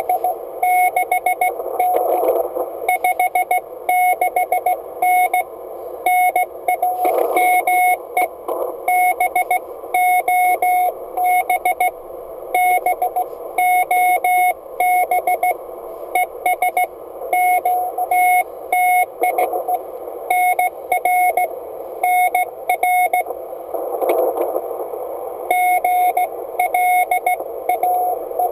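Morse code tone from an Icom IC-701 HF transceiver, a single steady pitch keyed on and off in dots and dashes in groups of characters, over receiver band hiss.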